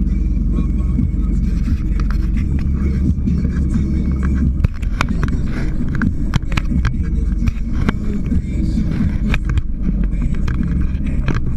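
Scarab powerboat's engine running steadily as it cruises over choppy water, with a scatter of sharp knocks and taps, most of them about halfway through.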